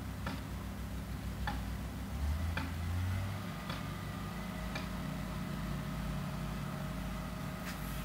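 Distant low hum of tree-service machinery, a brush chipper and compact loader engines running, swelling briefly about two to three seconds in. Regular clicks about once a second sound over it through the first half.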